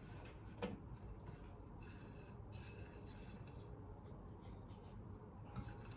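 Faint rubbing and scraping as zucchini slices are pressed and turned by hand in breadcrumb coating on a glass plate. There is a light click about half a second in and another near the end.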